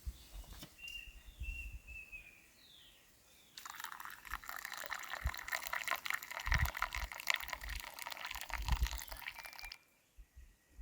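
Water pouring and splashing for about six seconds, starting suddenly about three and a half seconds in and stopping abruptly near the end. Birds chirp in the first few seconds.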